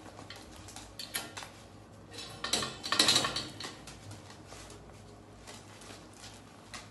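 Plastic crinkling and light clicks of an adult disposable diaper being handled and adjusted on a small dog, with a louder crinkling rustle near the middle.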